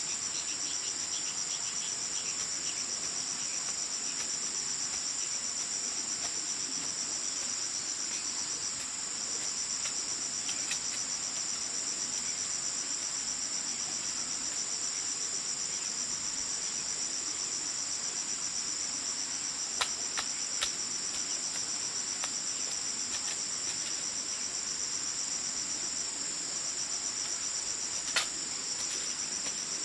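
Continuous high-pitched trilling of an insect chorus, steady and unbroken. A few sharp knocks stand out, about two-thirds of the way through and again near the end.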